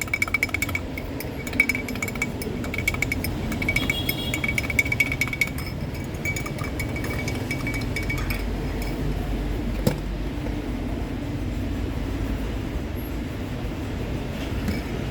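Rapid clinking of a utensil or ice against a cup, with a bright ringing tone, for about five seconds, then sparser clinks and one sharp knock about ten seconds in, over a steady low rumble.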